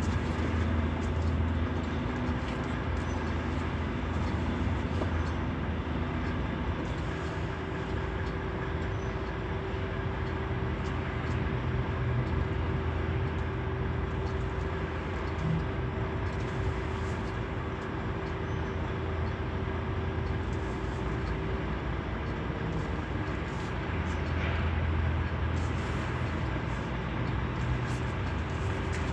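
A large engine running steadily: a continuous low drone, with a higher steady hum held through the middle stretch.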